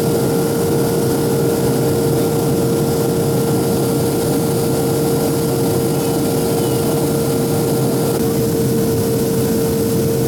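Airliner cabin noise: a steady drone of engines and rushing air heard from inside the cabin, with a constant hum running through it.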